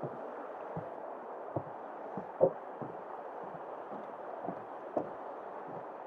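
Footsteps of a walker on a trail, soft thuds about one or two a second, the strongest about two and a half seconds in, over a steady rushing background noise.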